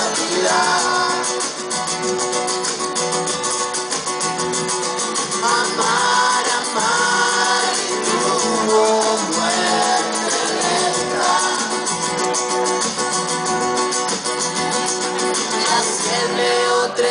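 Live acoustic band playing a song: strummed acoustic guitars under several voices singing together.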